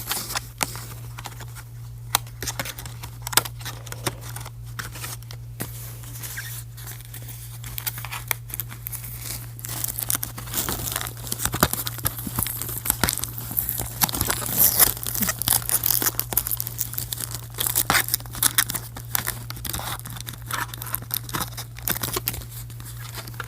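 Cardboard and plastic packaging of a boxed doll being handled and pulled apart: irregular tearing, crinkling and clicking as accessories are worked free from the box insert and ties, busiest midway through. A steady low hum runs underneath.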